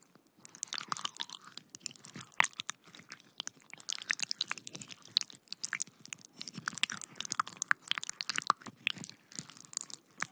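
Designed gore sound effect of intestines being squeezed: wet, squishy squelching with dense irregular crackles and occasional sharper snaps.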